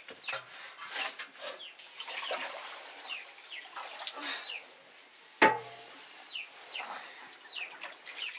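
Chickens calling: many short, high chirps, each falling in pitch, with scattered small knocks and one sharp knock about five and a half seconds in.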